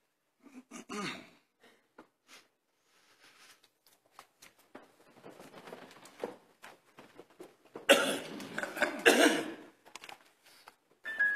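A cough about a second in, then scattered clicks and a growing rustle and shuffle as a robed choir gets to its feet, loudest a couple of seconds before the end. Sustained accompaniment notes begin right at the end.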